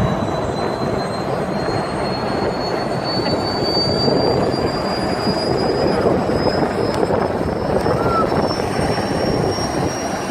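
Helicopter running loud and steady on the helipad as it powers up for takeoff, with a high turbine whine slowly rising in pitch over the engine and rotor noise.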